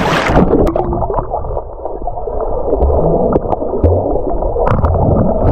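A splash at the surface, then about half a second in the action camera goes under the river water: muffled underwater gurgling and bubbling with scattered small clicks, all treble cut off.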